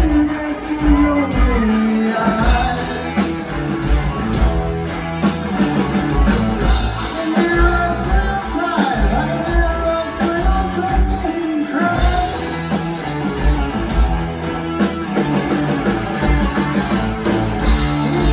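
Rock band playing live, with electric guitar lines over bass and drums at a steady beat.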